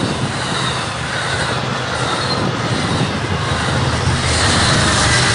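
Amtrak Pacific Surfliner passenger train passing close by, its bilevel cars' wheels running steadily on the rails. About four seconds in the sound grows louder as the trailing F59PHI diesel locomotive goes by, adding its engine hum.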